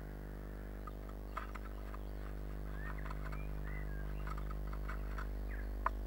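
Steady electrical hum of a nest-box camera, with faint short bird chirps from outside and scattered light taps. Near the end comes one sharp knock as a blue tit arrives in the wooden box.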